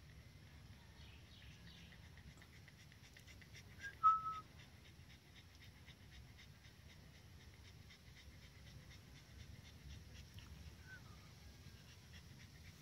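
Siberian husky puppy panting softly, with one short high whine about four seconds in and a fainter, falling one near the end. A faint rapid ticking runs in the background.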